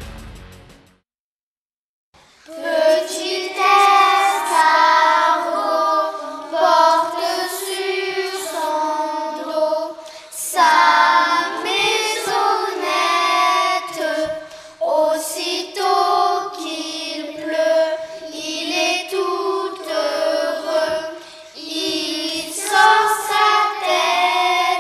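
Background music fades out about a second in; after a short silence, children's voices sing a melody together, with no instruments heard.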